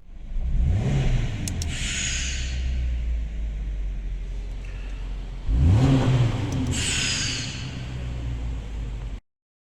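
Subaru Crosstrek's flat-four engine accelerating twice, about five seconds apart, each pull followed by a high whistle falling in pitch from the fake twin turbo exhaust whistles.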